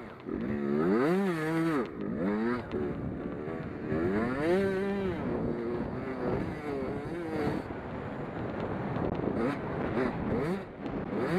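Race car engines revving up and falling back in pitch again and again as cars accelerate and lift around the speedway, several engines overlapping.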